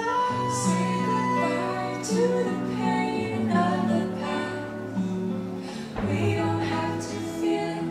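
Fireworks show soundtrack music: held melodic notes over a steady low bass line, with a few short sharp accents.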